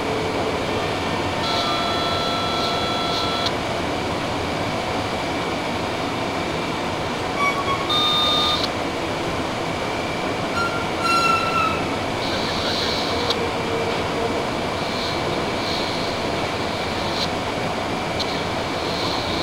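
Amtrak Superliner bilevel passenger cars moving slowly alongside the platform: a steady rolling rumble of the train, with brief high metallic squeals about two, eight and eleven seconds in.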